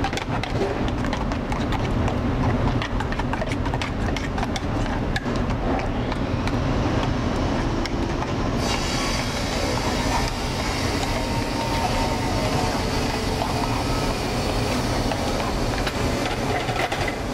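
A spoon scraping and clicking against an aluminium saucepan as celery root puree is stirred with butter, over the steady low rumble of a commercial kitchen. About halfway through, a high hiss joins in.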